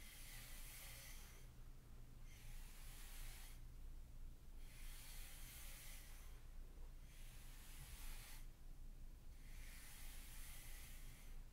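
Comb-toothed sand rake dragged through fine sand in repeated strokes, a soft scraping hiss with each pull lasting one to two seconds and short pauses between.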